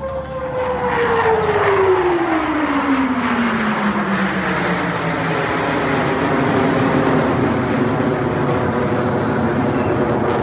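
Formation of Blue Angels F/A-18 Hornet jets flying past. A high whine drops steadily in pitch over the first five seconds as they go by, then gives way to a steady rushing jet noise.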